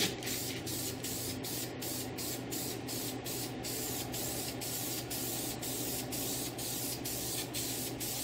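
Aerosol spray-paint can hissing steadily as black paint is sprayed onto an engine block.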